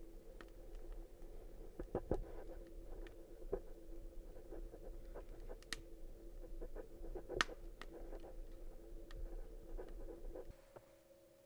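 Faint, irregular small clicks and scratchy crackles over a steady low hum. The hum and the clicks stop suddenly near the end.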